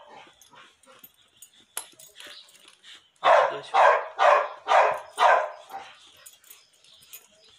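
Dog barking: a quick run of about five barks, roughly two a second, starting a little over three seconds in.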